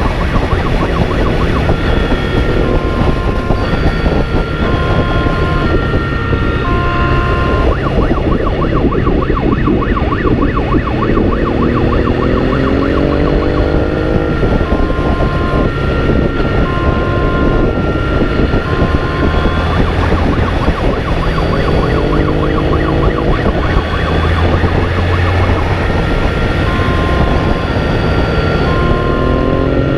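Emergency siren sounding continuously, alternating between a slow on-off two-tone pattern and a fast pulsing one, over a vehicle engine that rises in pitch three times as it accelerates.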